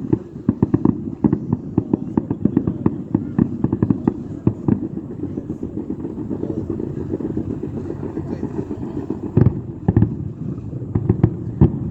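Fireworks going off: a rapid run of crackling pops, then two heavier booms about half a second apart near the end, followed by more crackling.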